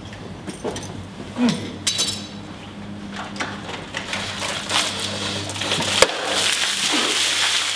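Ice clinking and rattling in a plastic tub as it is handled and lifted, then ice water dumped over a person's head, with a sharp hit about six seconds in followed by a steady rush of pouring and splashing water.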